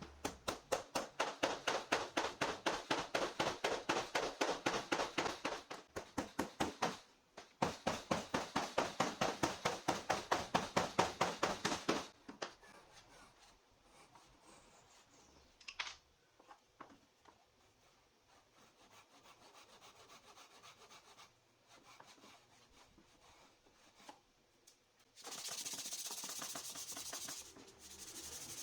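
Rapid back-and-forth rubbing strokes on wood, about four a second, in two runs with a short break between. Fainter scraping and a knock follow, then a steady hiss near the end.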